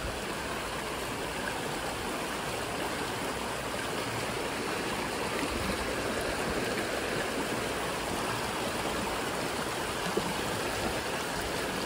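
Steady rushing of a stream or river flowing over rocks, even and unbroken.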